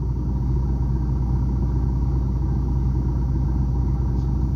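Steady low rumble of a Suzuki car's engine running, heard from inside the cabin.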